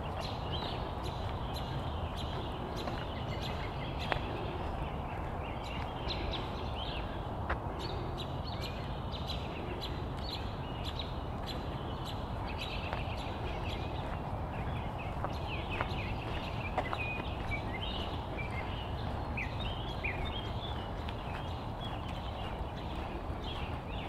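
Walking footsteps on pavement, a soft regular tick about twice a second, over outdoor evening ambience: a steady low rumble and scattered high chirps that grow busier in the second half.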